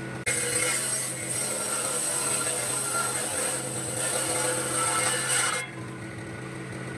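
A power tool working wood, a steady grinding hiss that starts suddenly and runs about five seconds before dropping away near the end.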